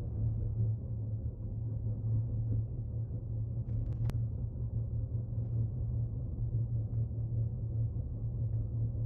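Steady low rumble of a car driving, the engine and road noise picked up by a dashcam, with a single sharp click about four seconds in.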